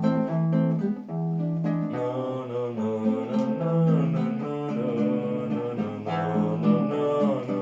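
Acoustic guitar playing an instrumental passage of a Russian romance: a plucked melody over held bass notes.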